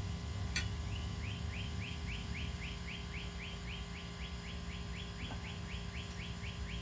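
A run of short, high chirps, about four a second, starting about a second in and going on steadily, over a low steady hum; a single sharp click just before the chirping starts.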